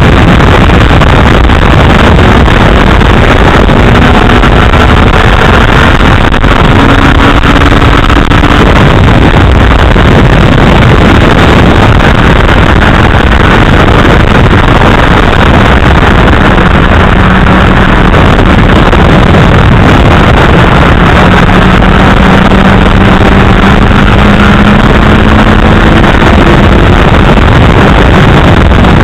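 Loud, steady wind noise rushing over the microphone of a camera mounted on a moving sport bike. Beneath it the 2008 Honda CBR1000RR's inline-four engine note is faint, its pitch slowly rising and falling.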